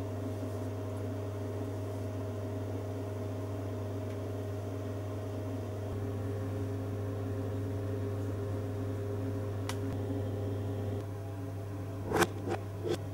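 A steady low hum with several faint steady tones above it, then three sharp clicks or knocks near the end.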